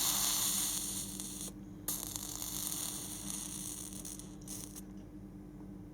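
Steady low electrical hum under a hiss. The hiss cuts out briefly about one and a half seconds in and fades toward the end.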